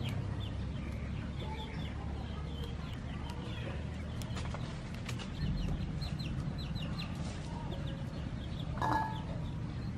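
Chickens clucking, with many short high chirps throughout and one louder call near the end, over a steady low background rumble.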